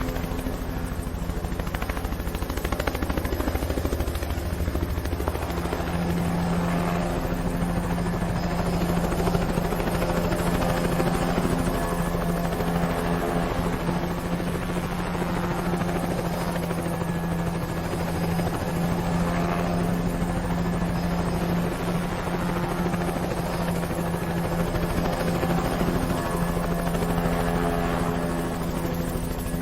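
Helicopter sound effect: a steady, unbroken helicopter drone with a strong low hum.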